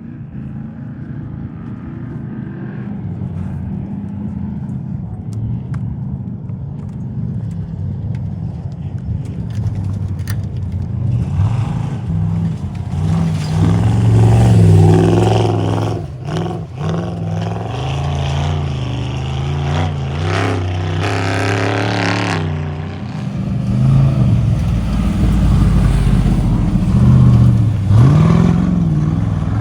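Off-road race vehicle engine running hard, its note stepping up and down in pitch as it shifts and changes throttle. It grows louder over the first half, as a vehicle comes closer, and stays loud.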